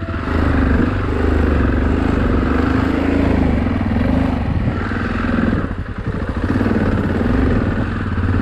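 Yamaha Ténéré XT660Z's single-cylinder engine running under varying throttle while riding off-road, its note rising and falling, with a brief drop about six seconds in.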